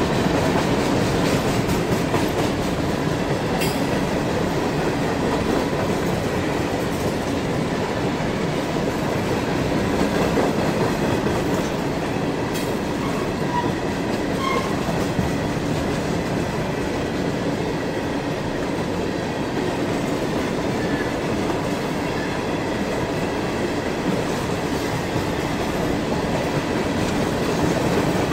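Freight train of covered hopper cars rolling past at steady speed: steel wheels running over the rails with a continuous, even noise.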